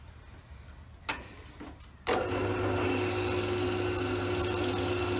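A click about a second in, then a bench drill press motor switches on about two seconds in and runs steadily at about 1000 RPM with a constant hum.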